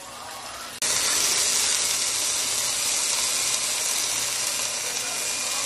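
Chicken frying in a pan: a steady sizzling hiss that starts abruptly about a second in.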